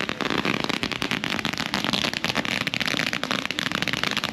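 Firecrackers going off in a rapid, unbroken run of sharp cracks, loud enough to startle.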